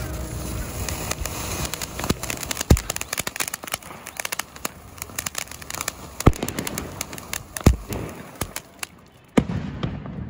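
Sony Vinayaga Cluster Fountain, a chained ground-fountain firework, spraying sparks with a steady hiss and dense crackle, cut by a few sharp pops. The hiss dies away about nine seconds in as the fountain burns out, and one last pop follows.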